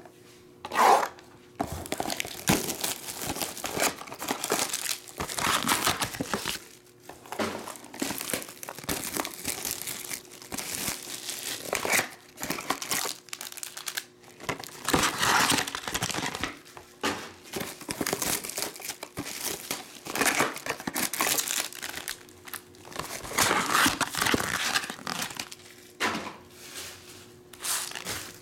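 Plastic wrap crinkling and tearing by hand in irregular bursts as a trading-card box is unwrapped and its cellophane-wrapped card packs are pulled out and opened.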